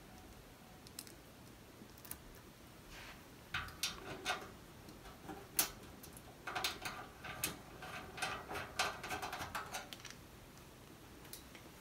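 Small metal clicks and rattles of machine screws and locking nuts being fitted by hand to fasten the powder-coated metal top shell to the case bottom. The sounds come as a few isolated ticks, then irregular clusters through the middle and later part.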